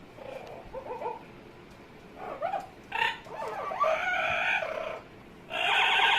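Amazon parrot making a string of vocal noises: soft short calls at first, a longer wavering, gliding call about three seconds in, and a loud harsh, crowing-like call near the end.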